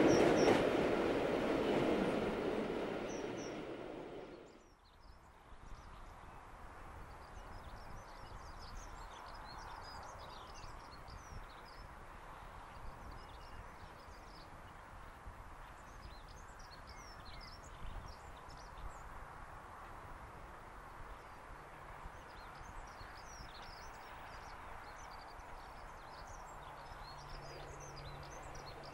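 A passing train's running noise dies away over the first four seconds, then birds chirp and sing against a quiet rural background. Near the end a faint, steady low drone comes in from a diesel locomotive approaching in the distance.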